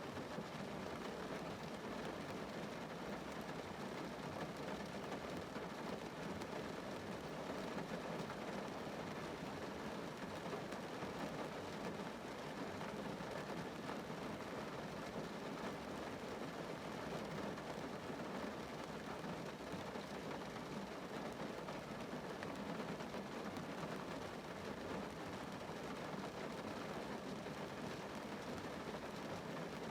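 Rain falling on a car's roof and windows, heard from inside the car: a steady, even wash of raindrops with no change in strength.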